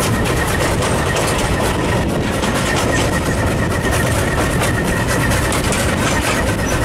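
Train running in pouring rain, heard from an open carriage balcony: a steady, loud noise of the NZR Ww-class steam tank locomotive working ahead and the carriages on the rails, mixed with rain and wind on the microphone.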